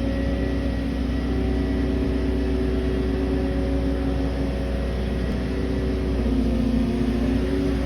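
Compact track loader's diesel engine running steadily, a low rumble with a steady hum of tones over it.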